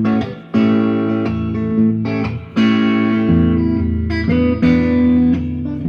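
Fender Stratocaster Road Worn electric guitar played clean: a Delta blues intro of picked notes and chords, a new one struck every half second to a second, several left ringing under the next.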